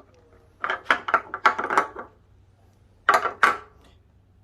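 Light hard clicks and clatter of gas cap parts being handled: a quick run of knocks about a second in, then a shorter pair near three seconds.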